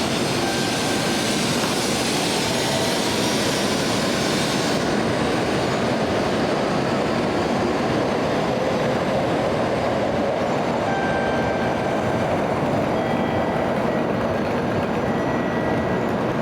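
Tokaido Shinkansen train moving at the platform: a steady rolling noise with faint gliding motor tones. The high hiss drops away about five seconds in.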